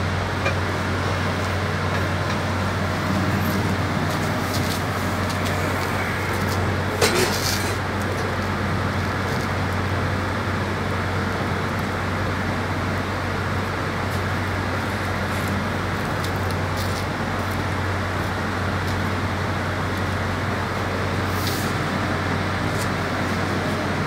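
Steady mechanical drone of a solid-fuel steam boiler house at work, with a strong low hum under it, and a brief clink about seven seconds in and another near the end.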